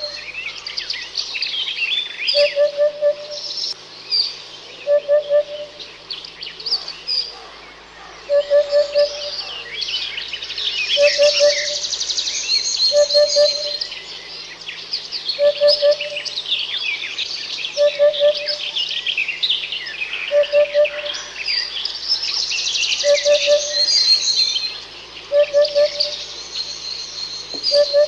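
Several birds singing and chirping together in dense, high twittering trills. A lower two-note call repeats about every two and a half seconds underneath.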